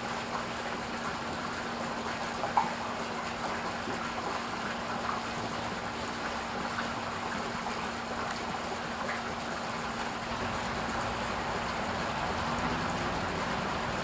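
Garden fountain's water trickling and splashing steadily into its stone basin, with one brief sharp sound about two and a half seconds in.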